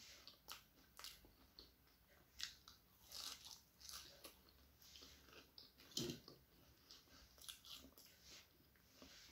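Close-miked eating of a breadcrumb-coated fried egg devil: quiet, irregular crunching and chewing mouth sounds, with one louder crunch about six seconds in.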